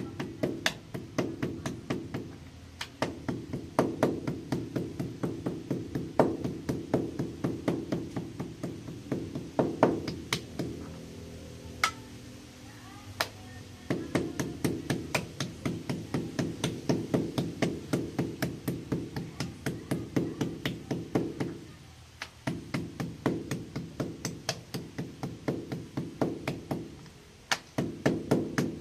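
Chef's knife chopping repeatedly into a pork steak on a plastic cutting board: quick knocks about four a second, with a pause of a few seconds about ten seconds in.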